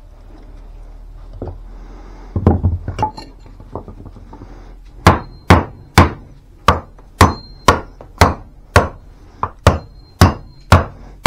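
Small Kings County camp axe chopping wood with quick, short strokes, held near the head. A few scattered knocks come first, then about a dozen sharp whacks at roughly two a second.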